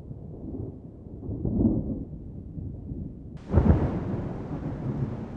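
Thunder: a low rolling rumble fades, then about three and a half seconds in a sudden loud thunderclap breaks and rolls on, slowly dying away.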